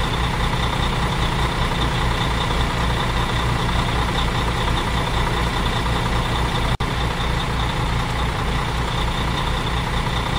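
Truck engine sound effect running steadily at idle with a regular low throb, broken by a split-second gap about two-thirds of the way through.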